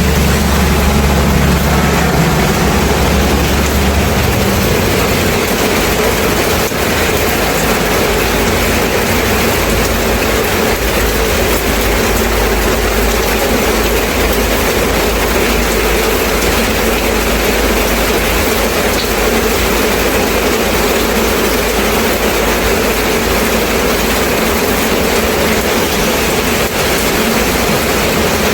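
Steady rain falling, a continuous even hiss, with a low rumble underneath that is strongest in the first few seconds and returns from about eleven seconds in.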